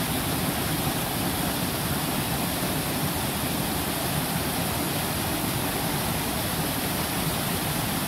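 A small cascading mountain waterfall, white water rushing steadily over rocks.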